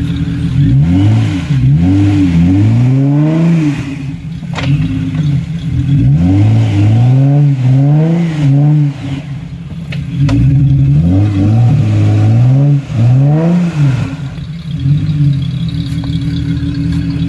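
Off-road 4x4's engine idling and then revved hard in three bursts, its pitch rising and falling again and again within each burst. A couple of sharp knocks come in between.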